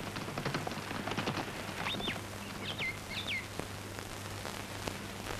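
A few short bird chirps, each a quick falling whistle, about two and three seconds in. Under them is the faint crackling hiss and low hum of an old film soundtrack.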